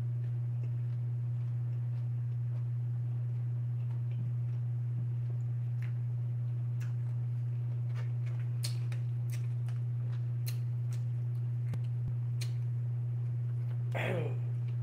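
A steady low hum runs underneath throughout. Over it are eating noises: scattered small clicks from about six seconds on, from a fork on a plastic plate and from chewing. Near the end comes a brief hum of voice.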